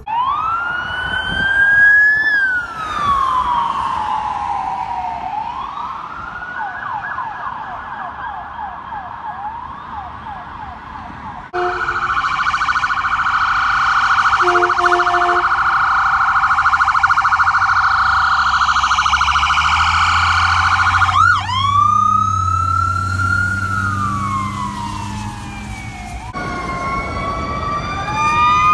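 Electronic emergency-vehicle sirens passing: a wail rising and falling slowly, switching to a fast yelp. After a cut, an ambulance siren cycles rapidly with a couple of short horn blasts, then drops back to a slow wail. Near the end, several sirens sound together.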